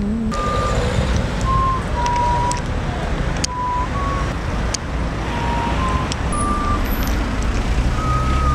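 Street traffic, with cars and a van passing, as a steady low noise. Over it sounds a string of short held high notes at changing pitches, a thin tune.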